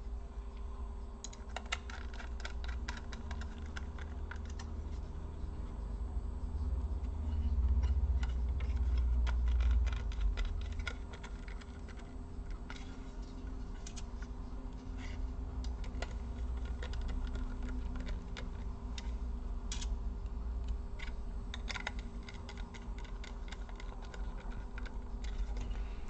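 Scattered small clicks and taps of a precision screwdriver and screws as a 2.5-inch SSD is fitted back into its metal bracket in a laptop. A low handling rumble swells between about 7 and 10 seconds in.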